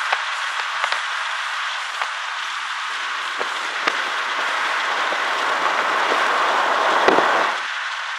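Steady rushing road and wind noise of a car driving along, with a few scattered small clicks. It swells slightly toward a short thump about seven seconds in, then eases off.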